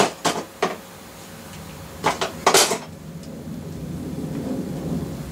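Hand tools clinking and clattering in a tool case as one is picked out: a few sharp clicks, then two louder rattles about two seconds in.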